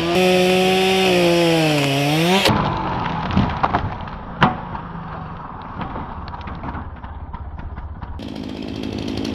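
A chainsaw running at high revs, its pitch dipping and rising about two seconds in. Then the sound changes abruptly to a chainsaw cutting through a tree branch, with many small snaps and cracks of wood and one sharp crack about four and a half seconds in.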